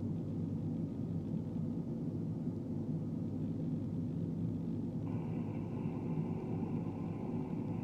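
Manitowoc 2250 crawler crane's diesel engine running steadily, heard from the operator's cab with a load on the hook. A steady higher-pitched tone joins the drone about five seconds in.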